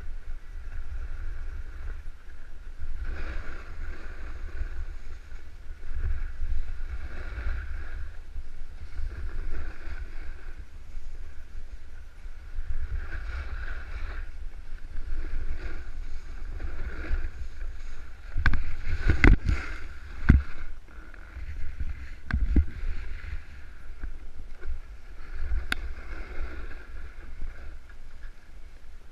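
Snowboard sliding down a snowy slope, the edge scraping the snow in a swell every second or two as the rider turns, over a steady rumble of wind on the camera's microphone. A few sharp knocks about two-thirds of the way in.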